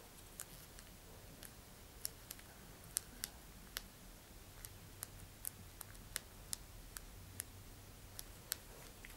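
Faint, irregular small clicks and ticks, about twenty of them, from nitrile-gloved fingers handling a small plastic antenna panel and pressing epoxy clay onto it.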